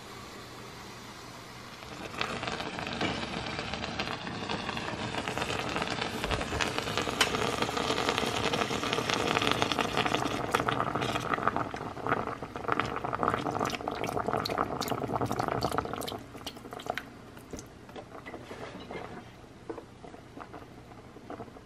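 Chicken broth poured from a carton into the hot cooking pot over a seared chuck roast: a steady liquid pour that starts about two seconds in and stops roughly three-quarters of the way through. Fainter crackling follows the pour.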